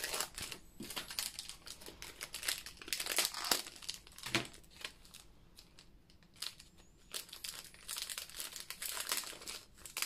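Small clear plastic bags crinkling as they are handled and opened, in irregular crackles that die down for a couple of seconds around the middle.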